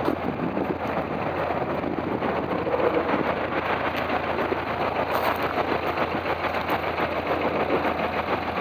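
Porsche 356's air-cooled flat-four engine idling steadily, its rear engine lid open.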